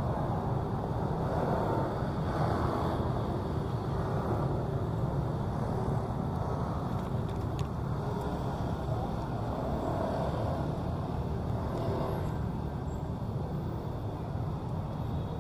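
Steady street traffic noise from a line of slow-moving cars, their engines running low and continuous with no single event standing out.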